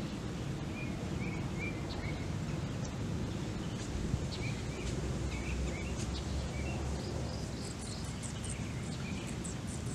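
Steady low outdoor background rumble, with a bird giving short chirps again and again, and a cluster of faint high-pitched chirps near the end.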